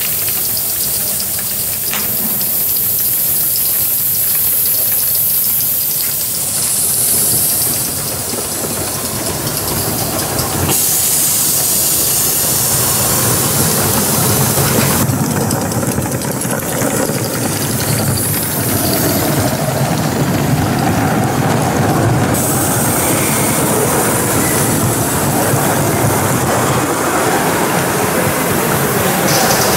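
Gauge 1 live-steam model locomotives running with a goods train: a steady hiss of steam with the wheels running on the track. The sound shifts abruptly several times.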